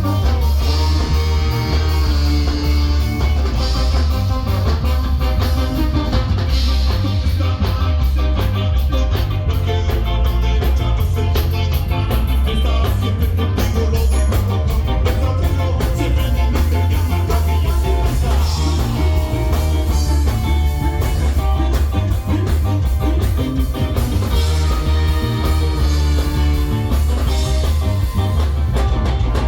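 Ska band playing, with a heavy bass line under the full band.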